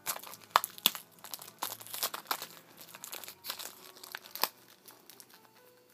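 Dog biting and chewing at a plastic-wrapped pack of gum, the tough plastic wrapper crinkling and crackling irregularly, dying away about four and a half seconds in.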